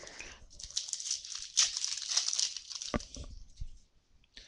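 A foil football-card pack wrapper being torn open and crinkled by hand, a dense crackling for about two and a half seconds. A single knock comes about three seconds in.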